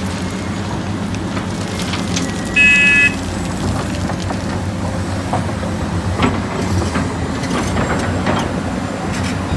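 Heavy construction vehicle's diesel engine running steadily, with a few scattered knocks and a brief, loud high-pitched tone about two and a half seconds in.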